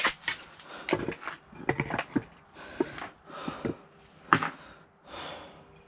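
Scattered light clicks and knocks of hand tools and engine parts being handled, with one sharper knock about four seconds in.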